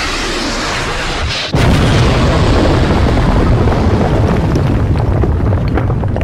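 Logo-intro sound effects: a hissing whoosh that cuts out about a second and a half in, then a deep boom that goes on rumbling, with a few faint crackles near the end.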